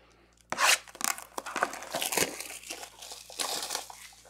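Plastic wrapping being torn and crinkled off a sealed box of baseball cards, in a string of irregular rips and crackles.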